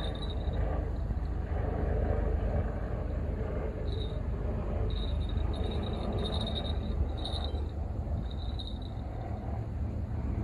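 Outdoor ambience: a steady low rumble, with short high-pitched insect chirps coming and going through the middle of the stretch.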